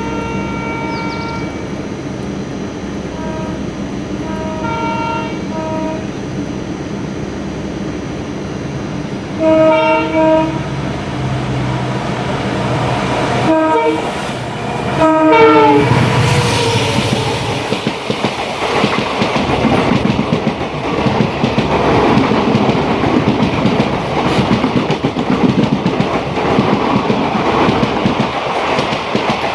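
Train horn sounding in several short blasts over a steady rumble, the loudest blasts about a third of the way in and around the middle. After that the train runs on with loud rhythmic clickety-clack of wheels over rail joints.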